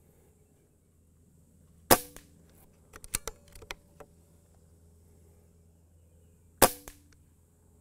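Two shots from a Benjamin Marauder .22 PCP air pistol, nearly five seconds apart, each a sharp crack with a short ringing tail. Between them comes a quick run of small metallic clicks from the bolt being cycled to load the next pellet.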